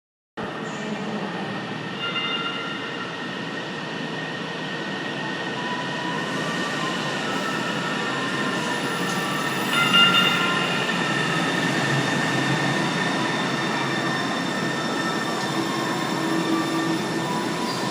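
Sound Transit Link light rail train running, a steady rumble of wheels on rail with high whining tones that come and go. It is loudest briefly about ten seconds in.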